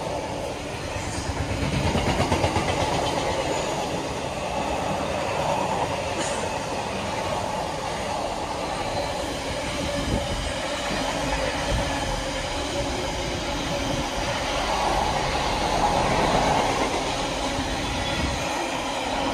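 Container wagons of a freight train running past at speed: a steady rumble of wheels on rails with a rhythmic clatter, loudest about two seconds in and again near the end.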